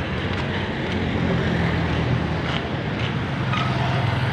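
Street traffic with a small motorcycle engine running close by, a steady low hum that grows a little stronger in the second half.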